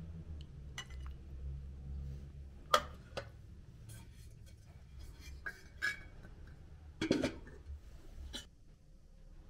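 Metal kitchenware clinking: a ladle knocking against a stainless-steel pot, about eight separate clinks and knocks, the sharpest about three seconds in. About seven seconds in comes a heavier clatter as the pot's metal lid is set on.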